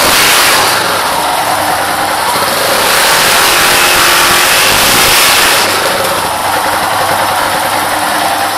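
Yamaha XT660R's 660 cc single-cylinder engine running through its stock exhaust, revved with the throttle. It is louder near the start and again from about three to five and a half seconds in, then eases back toward idle.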